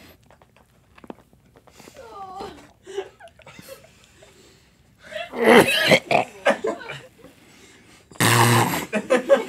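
Men gagging on mouthfuls of offal burrito: short strained vocal noises, a louder heave a little past midway, and a loud belch-like gag near the end.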